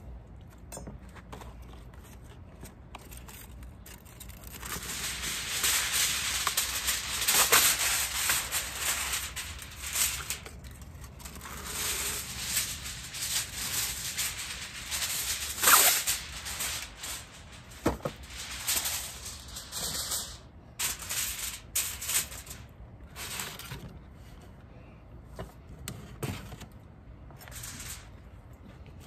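Aluminium foil rustling and crinkling as sheets are pulled off the roll, torn off and spread out. It comes in spells of crackly rustling, loudest just past the middle.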